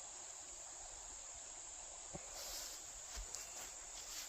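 Insects chirring in a continuous, steady high-pitched drone, with a few brief rustles about two to four seconds in.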